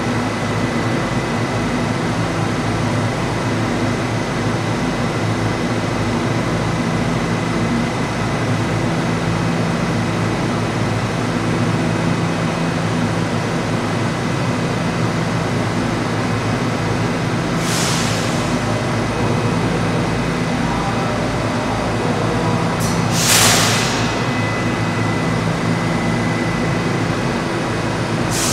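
An R68 subway car standing at the platform, its onboard equipment giving a steady hum with a thin high tone above it. Short hisses of released air come about 18 and 23 seconds in, the second the loudest, and again near the end.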